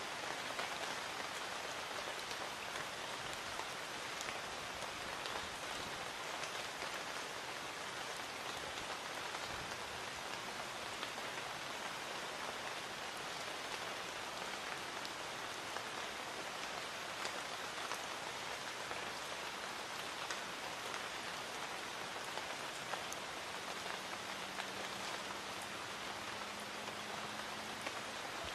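Light rain falling steadily, an even hiss of drops with scattered sharper drips.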